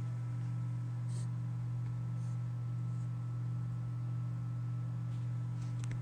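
Codep ceiling fan's motor humming steadily as it runs, with a couple of faint ticks about a second in and near the end.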